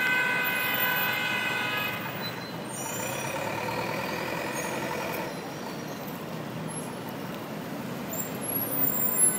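Busy city street traffic at an intersection: cars and a box truck running and crossing, with a steady high-pitched tone for about the first two seconds and a weaker tone from about three to five seconds in. The noise gets a little louder near the end.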